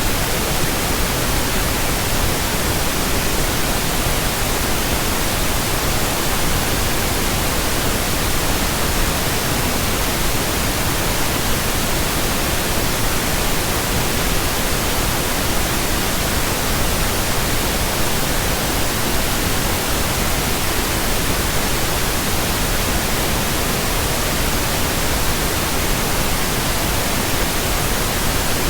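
Pink noise: a steady, unchanging hiss spread evenly across the whole range from deep lows to high treble.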